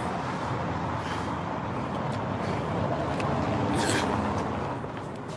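Street traffic noise: a motor vehicle passing, its steady rush swelling about three to four seconds in and then fading.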